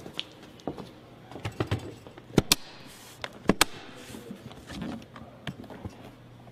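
A series of sharp clicks and knocks, the loudest coming as two quick pairs about a second apart, over a faint steady low hum.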